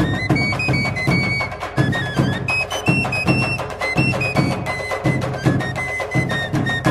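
Instrumental background music: a high melody of held notes stepping in pitch over a steady drum beat.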